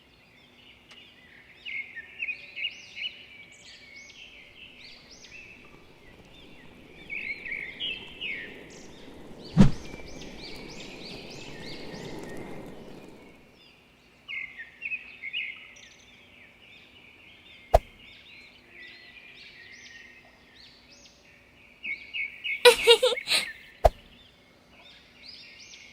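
Birds chirping in short repeated phrases throughout. A few sharp clicks cut in, the loudest about ten seconds in, followed by a low rumbling noise for about four seconds.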